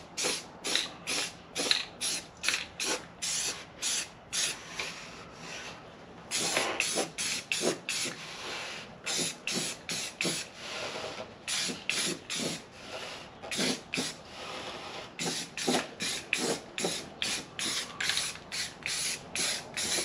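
Aerosol spray-paint can sprayed in short hissing bursts, about two a second, with a few longer passes partway through, laying down a first coat of paint over treated rust spots.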